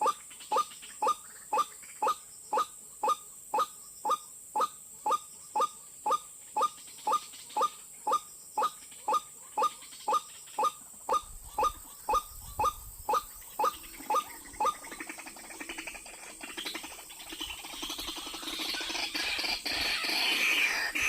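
White-breasted waterhen (ruak-ruak) call: a short note repeated about twice a second, the rhythmic lure call used to draw the birds in. About fifteen seconds in, the steady rhythm stops and a louder, jumbled calling builds toward the end.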